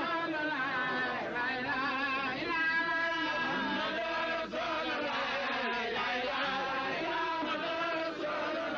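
Male voices singing a devotional chant, with long, wavering held notes.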